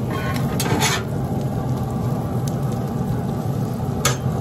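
Metal spatulas scraping and turning onions and mushrooms on a hot cast iron griddle: brief scrapes about half a second in and again near the end, over a steady low rumble.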